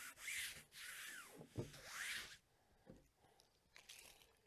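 Hands sliding and pressing over heavy canvas, smoothing a glued fold flat: several soft brushing swipes over the first two seconds or so, then only faint scuffs.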